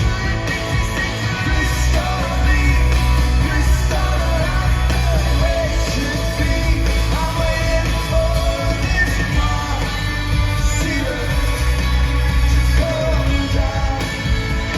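Rock band playing live with a male lead singer, loud and bass-heavy.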